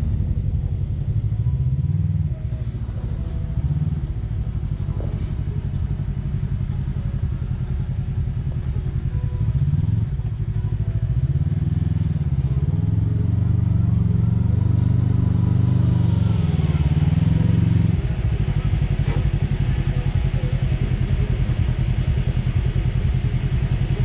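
Kawasaki Teryx KRX 1000 side-by-side's parallel-twin engine running as the machine works through deep sand and comes up close. The pitch rises and falls with the throttle, loudest in the second half and easing off a few seconds before the end, with one sharp click just after that.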